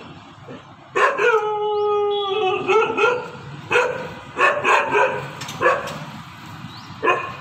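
A dog howls once in a long, slightly falling cry about a second in, then barks repeatedly, about eight short sharp barks spread over the following seconds.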